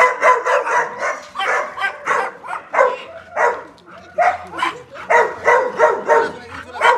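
A dog giving a rapid string of short, high yelps and whines, several a second, while being petted and greeted, with a brief lull a little past the middle.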